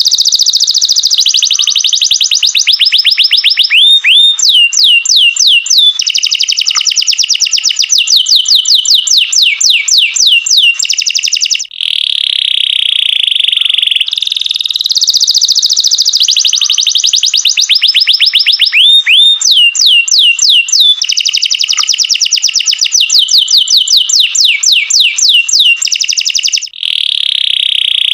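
Domestic canary singing a long, continuous song of rapid trills, held buzzy notes and quick downward-sweeping notes, with a short break about twelve seconds in and another near the end. The same sequence of phrases repeats about every fourteen seconds.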